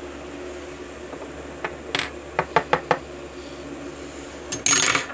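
Steel tweezers and a metal euro lock cylinder and plug clicking and tapping against each other while the lock is being taken apart: a quick run of sharp ticks in the second and third seconds, then a louder, brief clatter near the end. A steady low hum runs underneath.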